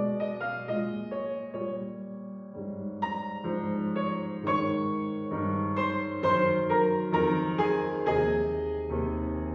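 Solo piano playing a lyrical piece in a classical style, with notes struck about every half second and left ringing over sustained low bass notes.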